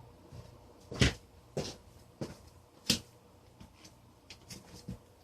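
A series of sharp clicks and knocks from small objects being handled and set down, the loudest about a second in and just before three seconds, with lighter taps after.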